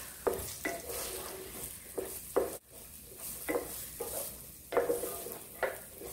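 Diced onion sizzling in olive oil in a frying pan, stirred with a wooden spoon: about eight scrapes of the spoon against the pan over a steady hiss of frying.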